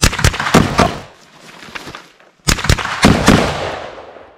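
Rifle shots fired in two quick strings of about four each, the second string starting about two and a half seconds in, with echo trailing off after each string.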